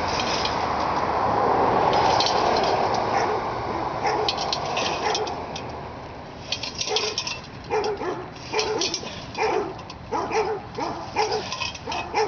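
A dog barking over and over in short yelping barks, coming thick from about halfway on. Before that there is a steady rushing noise.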